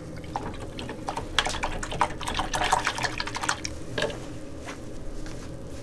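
A paintbrush rinsed in a jar of water: a run of small splashes and clicks against the container, the busiest from about a second in to past three seconds, with one more near four seconds, over a low steady hum.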